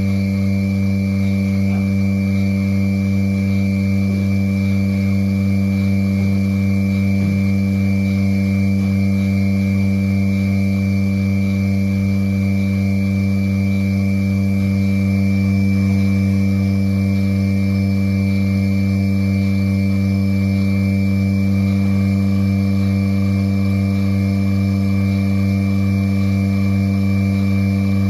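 Milking machine running: a steady electric hum from its vacuum pump while the teat cups are on a cow's udder.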